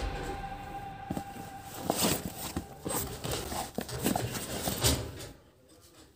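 Clothes being handled in a wardrobe: fabric rustling with irregular light knocks and clicks, dying down near the end.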